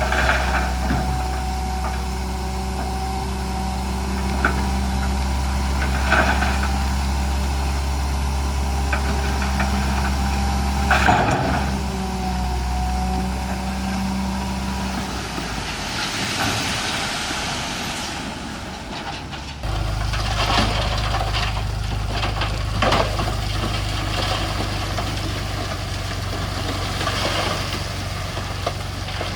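Heavy diesel earthmoving machinery engines running steadily, with a few brief clanks. About halfway through one engine note fades into a rougher, noisier stretch, and about two-thirds of the way in a different, steady engine note starts.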